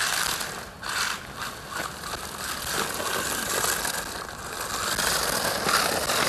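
Electric RC truck (Remo Hobby 1631 Smax) driving on asphalt on 3D-printed air-chamber tires: motor and gear whine with tire noise. It grows louder toward the end as the truck comes closer.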